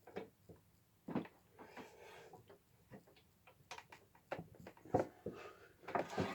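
Irregular clicks, taps and knocks of hand tools and parts being handled at a fretting workbench, with sharper knocks about one, five and six seconds in.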